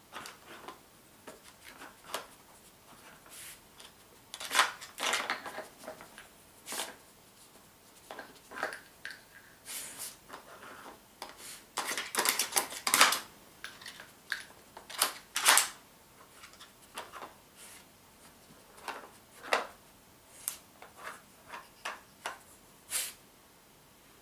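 Plastic pieces of a Nina Ottosson Dog Brick treat puzzle clicking, knocking and sliding in irregular bursts as a dog noses and paws at it, busiest in a few short flurries.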